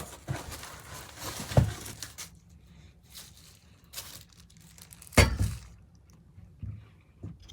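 Packing material rustling and crinkling as drill press parts are pulled out of their box, with a knock about a second and a half in and a louder thump about five seconds in as a part is set down.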